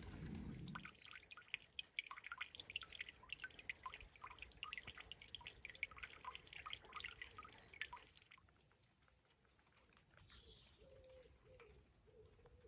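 Water dripping and dribbling into a garden pond: a dense, quick patter of small splashes that stops suddenly about eight seconds in. Near the end a pigeon coos faintly.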